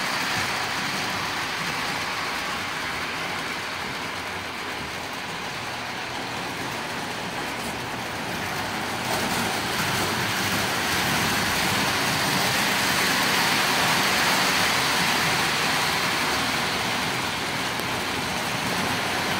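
Model train running around its track, a steady rolling whir of the motor and wheels on the metal rails. It grows louder about nine seconds in.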